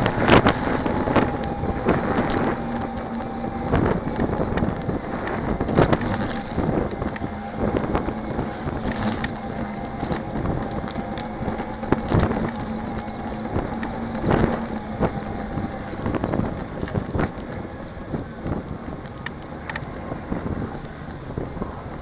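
Gotway MSuper2 electric unicycle riding at a steady speed: wind rushing over the mounted camera's microphone, a faint steady hub-motor whine, and knocks where the wheel rolls over bumps and joints in the pavement.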